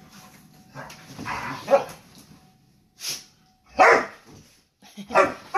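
Two dogs play-fighting, a German shepherd among them, with growling and barking. A rough stretch of growls comes about a second in, then short sharp barks a second or so apart.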